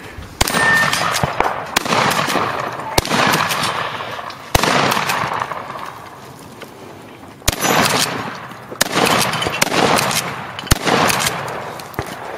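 About eight rifle shots from a POF P308 semi-automatic rifle in .308, fired one at a time with pauses of one to three seconds between them. Each shot is followed by a long, fading echo off the surrounding terrain.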